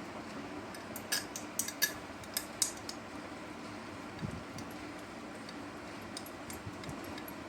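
A quick cluster of light metallic clicks and clinks between about one and three seconds in, then a few fainter ticks, from metal tools and small motorcycle engine parts being handled. A faint steady hum runs underneath.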